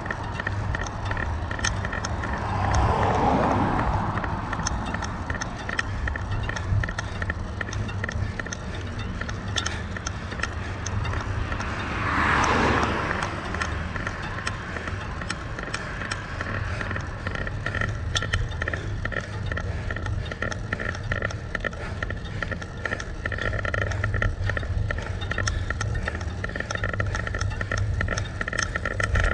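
Wind and road noise on an action camera riding along on a bicycle: a steady low rumble with scattered light ticks. Two cars pass, one about three seconds in and another about twelve seconds in, each swelling and fading.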